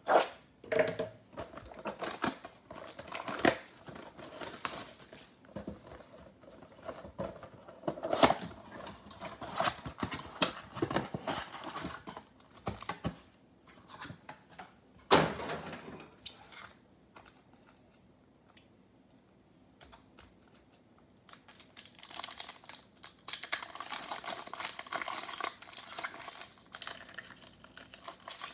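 Cardboard trading-card box being torn open and handled, with scraping and sharp knocks, the loudest about 15 seconds in. After a quiet stretch, a card pack's crimped plastic wrapper crinkles steadily as it is worked open.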